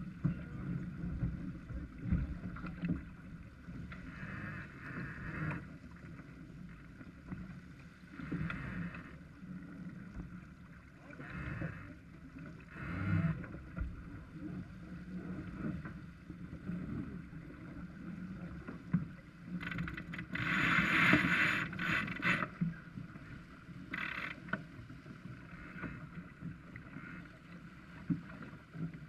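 Farr 280 sportsboat under sail: water rushing and splashing along the hull, with wind rumbling on the microphone. Several louder rushes of water come and go, the loudest about twenty seconds in.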